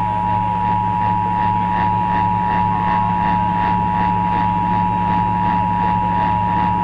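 Emergency Alert System two-tone attention signal: two steady tones sounding together, held unbroken, received over AM radio with a low steady hum and static underneath. It is the alert tone that opens an EAS Required Monthly Test message.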